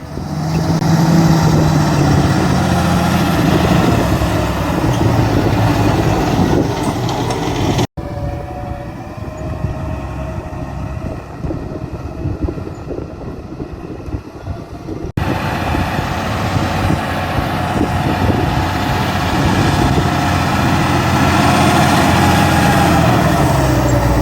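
John Deere 8345R tractor's six-cylinder diesel running steadily under working load. The sound is cut twice, about 8 and 15 seconds in, and is quieter between the cuts.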